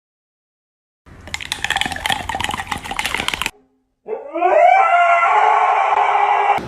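A dog howling: a long, loud call that slides up in pitch and then holds, starting about four seconds in. Before it comes about two seconds of rapid, scratchy crackling.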